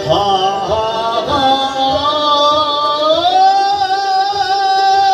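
Kashmiri Sufi (sufiyana) music: a male voice sings a bending melodic line that settles into a long held note with vibrato, over harmonium, with a steady run of low strokes on a pot drum and a plucked rabab.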